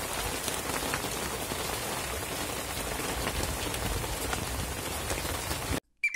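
Steady rain falling on open water, with scattered faint drop ticks; it cuts off suddenly near the end.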